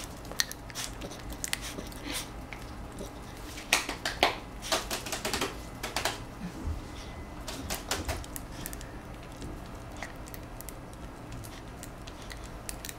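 A puppy's claws clicking and tapping irregularly on a hard floor as it hops on its hind legs and steps about, the taps thickest in the first half.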